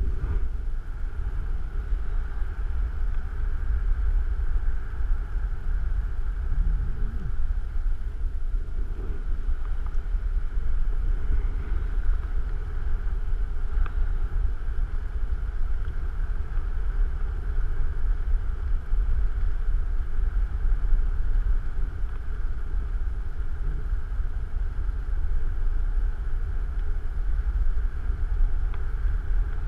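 Steady low wind rumble buffeting the camera microphone as air rushes past during descent under an open ram-air parachute canopy.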